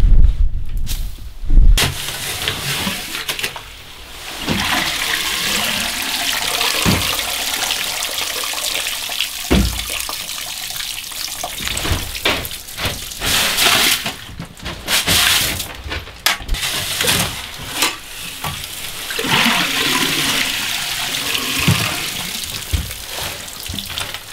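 Ice auger churning up water and slush through a hole in the ice, splashing into a bucket set over the hole. The first two seconds hold a loud low rumble that stops suddenly.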